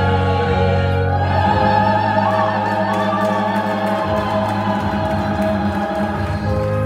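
A group of women singing together, holding long notes over a steady low accompaniment.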